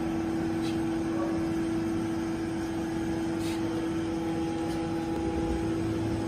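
Steady machine hum with one strong constant mid-pitched tone, from a Kunzmann BA 600 CNC machining centre that is switched on but not cutting. A few faint ticks sound over it.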